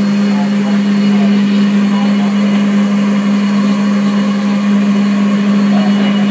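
Steady, loud roar in a steam locomotive cab, with the fire burning in the firebox, over a constant low hum.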